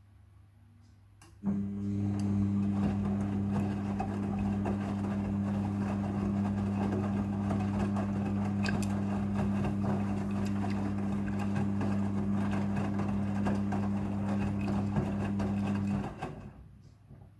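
Midea front-loading washing machine running a rinse: a steady electric hum with water rushing, starting suddenly about a second and a half in and cutting off shortly before the end.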